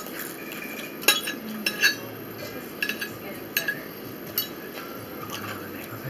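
Metal fork clinking and tapping against a ceramic dinner plate while picking up food. There are several short sharp clinks, the loudest between one and two seconds in, then lighter ones about once a second.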